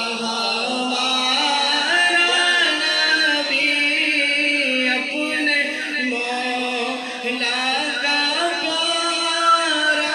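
A man singing a naat, an Urdu devotional poem in praise of the Prophet, solo into a microphone with no instruments. He holds long notes and ornaments them with wavering runs.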